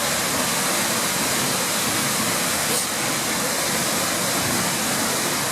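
Seljalandsfoss waterfall plunging from a cliff ledge into its pool, the falling water making a steady, even rush.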